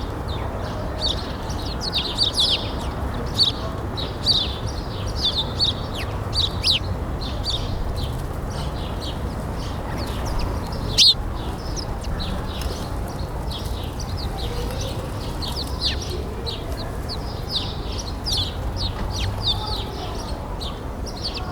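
Small birds chirping: many short, high chirps follow one another over a steady low background rumble, with one louder chirp about halfway through.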